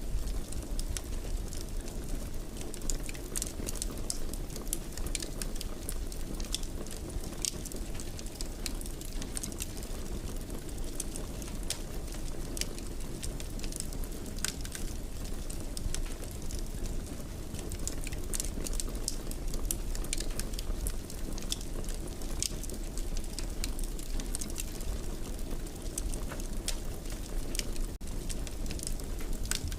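Wood fire burning in a fireplace: a steady low rumble with frequent small sharp crackles and pops scattered irregularly throughout.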